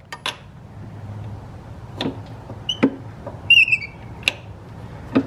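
Metal clicks and clanks of a crankshaft-pulley holding tool being fitted to and settled against the crank pulley, about half a dozen separate knocks, with a short high squeak about halfway through.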